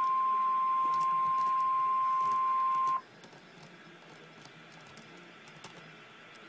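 Emergency alert warning tone, a single steady high beep held at one pitch, which cuts off suddenly about three seconds in. Faint radio hiss with occasional tiny ticks follows.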